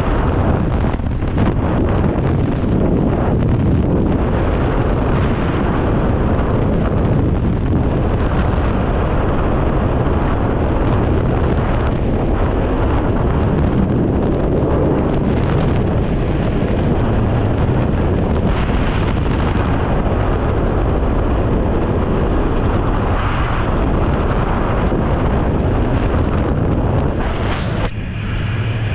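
Skydiving freefall wind blasting across a body- or helmet-worn camera's microphone: a loud, steady rush of wind noise that dips briefly near the end.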